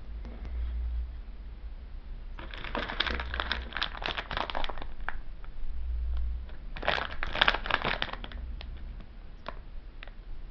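Thin plastic wrapping being handled and crinkled, in two bursts of crackling with a few light clicks between them.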